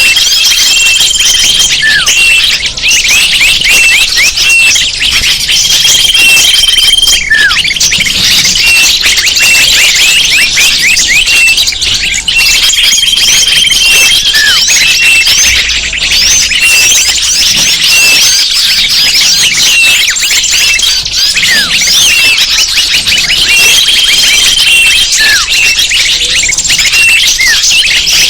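A dense chorus of many small birds chirping and twittering, a mixed-species bird-lure recording. Short held whistles and falling swoops come back every few seconds in a repeating loop.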